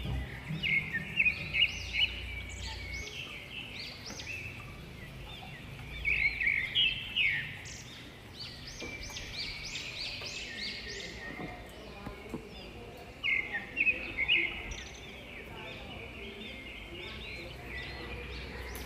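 Runs of short, high-pitched chirping calls, several in quick succession, in three bunches separated by quieter stretches.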